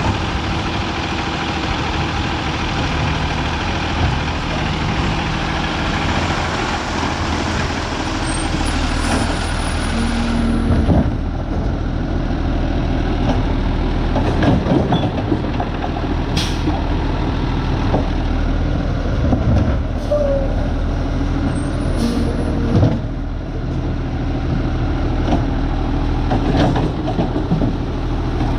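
Diesel garbage truck running steadily at close range, with a loud hiss over the first ten seconds or so, then a few sharp knocks later on.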